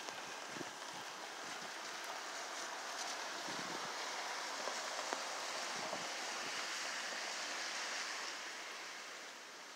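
Steady rushing hiss of rain and wind, swelling a few seconds in and easing off near the end.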